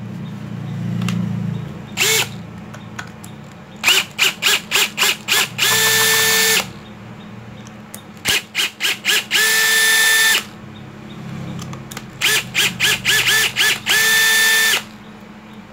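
Power screwdriver backing out screws from a power tool's housing. Three times it is pulsed in quick short spurts and then held running for about a second.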